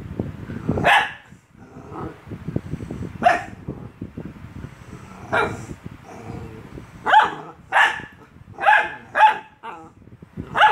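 A small dog barking in sharp single barks at its own reflection in a mirror, spaced a couple of seconds apart at first, then coming faster in the second half. Under the barks there is a low rustling of bedding.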